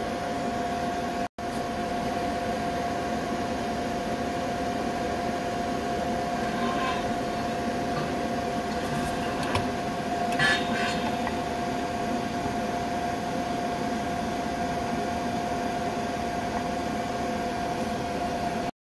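Steady machine hum with one constant tone, broken by a few faint clicks, the loudest small cluster about ten and a half seconds in. The sound drops out for an instant just over a second in.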